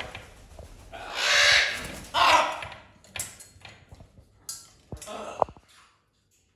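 A parrot's harsh squawks: two loud, raspy calls about a second in and just after two seconds, followed by a few small clicks and a brief thin whistle-like note near the end.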